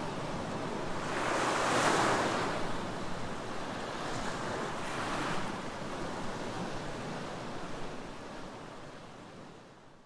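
Small ocean waves breaking and washing up a sandy beach, with a louder wash about two seconds in and another around five seconds, the surf sound then fading out at the end.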